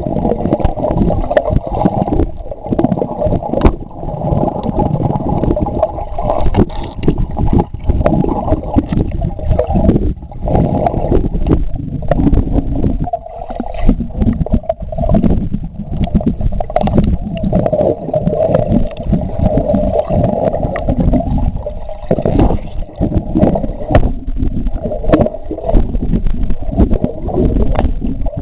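Muffled underwater rush and bubbling of water stirred by a swimmer's strokes, picked up by a camera held under the surface. Frequent short clicks and knocks run through it.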